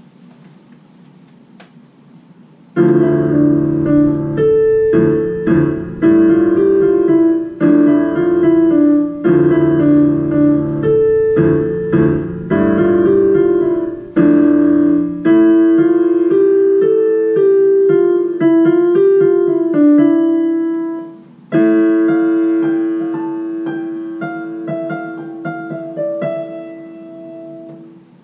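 Portable electronic keyboard played with a piano sound: a simple student piano piece with repeating note patterns, starting about three seconds in. A short break comes about twenty-one seconds in, then a new phrase of held notes that slowly fade.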